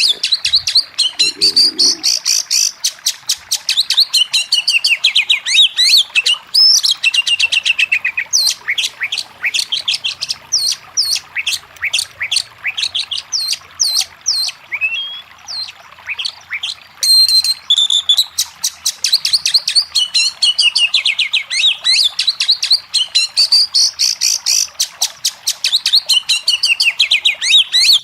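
Oriental magpie-robin (kacer) singing loudly and without pause: fast runs of repeated chirps and trills mixed with sharp falling whistles.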